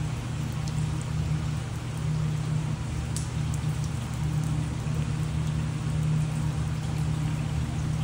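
Steady rain falling, a constant hiss with a few sharp drop ticks, over a steady low hum.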